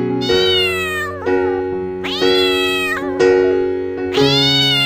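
Domestic cat meowing three times, each meow drawn out for about a second with a pitch that bends up and down, over background music of soft sustained chords.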